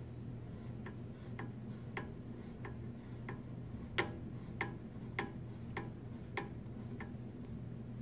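Bottle clamp's screw knob being turned by hand to close the clamp on a bottle, giving a steady series of sharp clicks, about one every half-second, the loudest about four seconds in.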